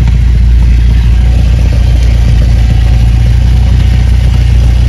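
Cessna 172's piston engine and propeller running steadily, a loud, even low drone heard inside the cockpit.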